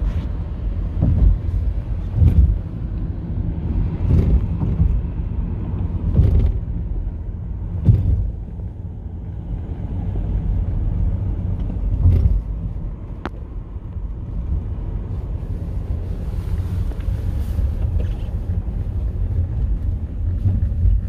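Steady low road rumble of a car being driven, heard from inside the cabin, with several short dull thumps over the first half as the car rides over bumps.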